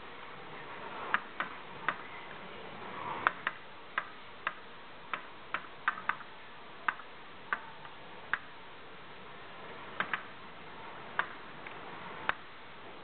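Sharp clicks from an arcade shooting game being played, about twenty of them at irregular intervals, some in quick pairs, over steady background noise.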